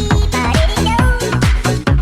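Electronic dance music with a fast, steady beat of about four strokes a second under a synth melody.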